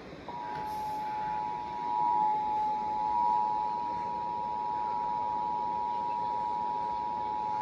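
Emergency Alert System attention signal: the steady two-tone 853 and 960 Hz alarm sounding together, beginning a fraction of a second in and held for about eight seconds. It announces the tornado warning that follows.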